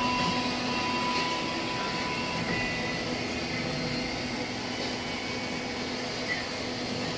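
Hydraulic press power pack, its electric motor and pump, running with a steady hum and a faint higher whine as the ram is lowered for a deep-drawing stroke.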